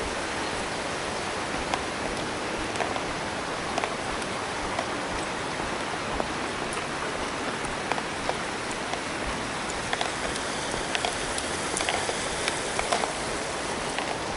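Steady rush of a small rocky creek running beside the path, with light footsteps on the gravel lane about once a second.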